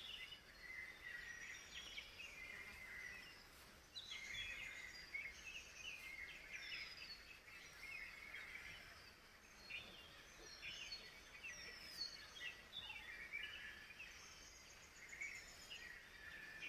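Faint forest bird chorus: many birds calling at once, in short chirps and quick falling whistles, over a light background hiss.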